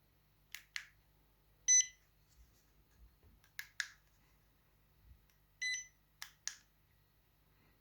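StarLine A94 car-alarm key fob, freshly repaired, beeping as it is tested: two short high beeps about four seconds apart, with pairs of sharp clicks between them from its buttons being pressed.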